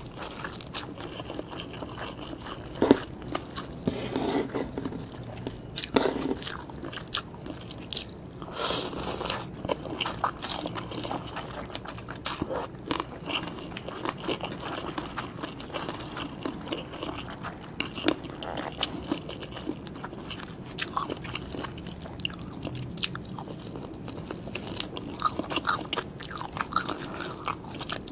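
Close-miked eating: a person chewing and biting papaya salad with rice noodles, wet chewing broken by many irregular crunches.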